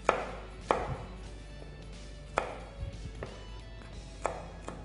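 Chef's knife chopping green bell pepper (capsicum) on a wooden cutting board: about six sharp knocks of the blade on the board at an uneven pace.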